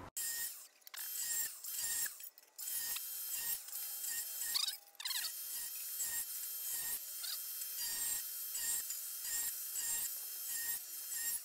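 Angle grinder with a thin cut-off disc cutting slots into thin sheet steel: a high, steady motor whine broken by many short gaps.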